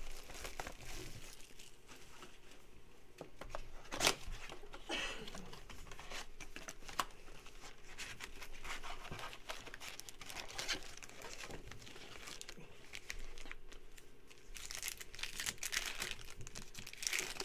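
Crinkling and tearing as the plastic wrap and cardboard of a trading-card blaster box are torn open, with sharp crackles throughout. Near the end a foil card pack is ripped open in a burst of crackling.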